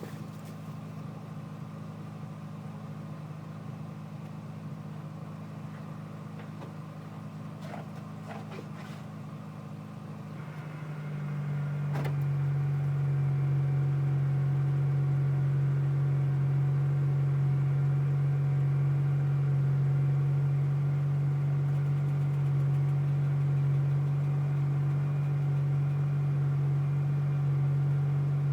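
Steady low engine drone that becomes markedly louder about eleven seconds in, with a sharp click just after, then holds steady.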